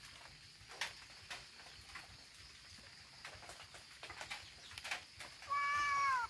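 A tabby cat gives one loud meow near the end, lasting under a second, holding its pitch and then dropping. Before it there are only faint scattered clicks.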